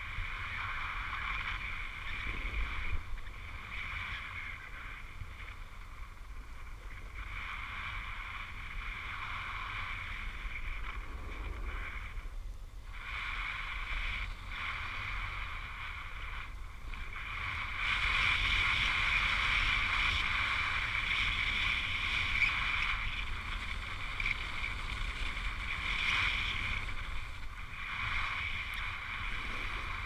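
Steady hiss and scrape of sliding over snow on a downhill run, swelling and dipping with the turns and louder in the second half, over a low wind rumble on the microphone.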